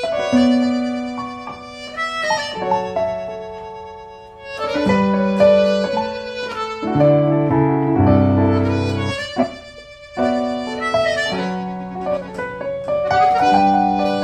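Instrumental music: slow chords, each struck and left to ring out before the next, about every two or three seconds.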